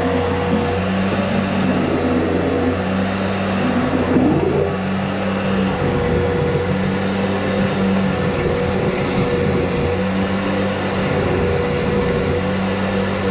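A motor-driven machine running steadily with a constant hum, and a second lower tone that cuts in and out every second or two.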